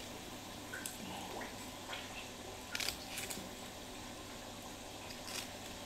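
Faint handling sounds from someone working with her hands: a handful of short, soft clicks and rustles spaced a second or so apart, over quiet room tone.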